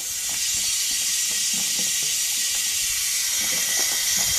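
Water hose running at a campground spigot, air and water spitting out of it in a steady hiss as the air is worked out of the line.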